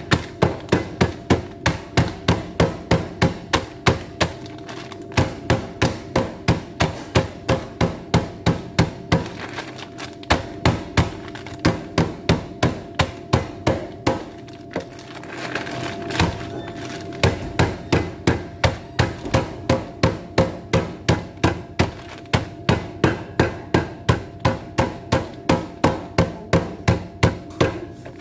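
Mixed nuts (walnuts, almonds, pistachios) in a plastic bag being pounded with a mallet on a wooden cutting board to crush them: steady blows about three a second, with a few short pauses, over a faint steady hum.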